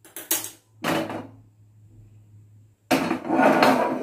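Kitchen clatter: a few short knocks in the first second or so, then a loud metal scrape and clatter near the end as an appe (paniyaram) pan is set onto the gas stove's burner grate.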